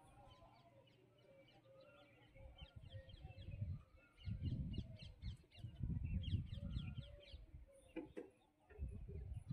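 Birds chirping and calling: many short, quick chirps with a few longer calls underneath. Several bursts of low rumbling noise on the microphone are the loudest sound.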